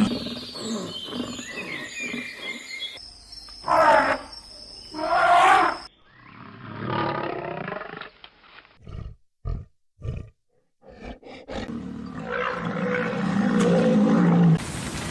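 Big cat roaring in several short spliced clips, the two loudest roars about four and five seconds in and a long, low call near the end.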